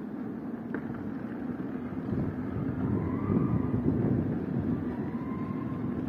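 Steady low rumble of outdoor background noise, growing louder about two seconds in.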